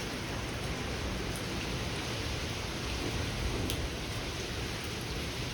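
Heavy hurricane rain pouring down in a steady hiss, with wind from the storm.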